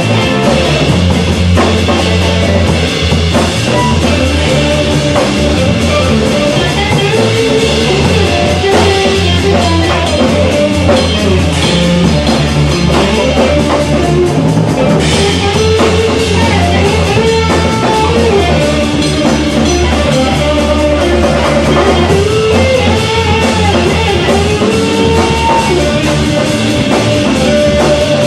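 Blues-rock band playing live: electric guitar carrying bending melodic lines over bass guitar and a steady drum kit.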